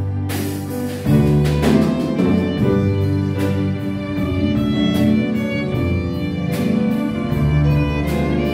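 Live instrumental jazz quintet: a violin plays the sustained melody over piano, electric guitar, plucked double bass and a drum kit, with regular cymbal and drum strokes.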